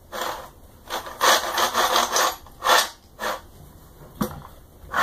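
3D printer's Y-axis bed carriage slid back and forth along its steel smooth rods on linear ball bearings, a rasping rub in a series of short strokes. A single sharp click comes a little after four seconds in.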